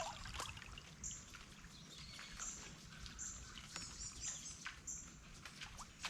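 Faint wildlife ambience: a short, high-pitched chirp repeated roughly once a second, with scattered faint ticks.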